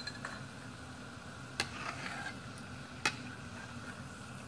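Hot oil sizzling in a metal kadai as a perforated metal skimmer stirs through it, tapping sharply against the pan twice, about a second and a half apart.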